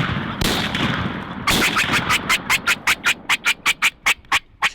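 Two shotgun blasts about a second apart, each with a fading echo, then a rapid run of wingbeats from a shot wild turkey flopping on the ground, about six beats a second and slowly spacing out.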